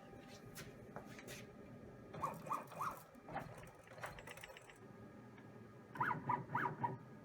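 CNC router's stepper motors jogging the gantry in short moves while the new V-bit is positioned for zeroing: several quick whirring pulses, a group of three or four a couple of seconds in and a louder run of about five near the end, after a few light clicks.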